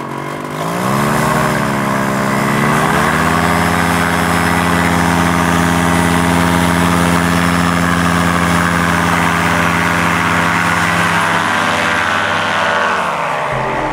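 Nirvana Rodeo 125 ES two-stroke paramotor engine and propeller on a trike, run up to full throttle for the takeoff roll. The pitch wavers up and down over the first few seconds, then holds steady at full power, and drops near the end.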